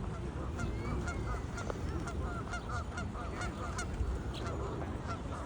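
Canada geese giving a rapid series of short honks and clucks, several calls a second, over a steady low rumble.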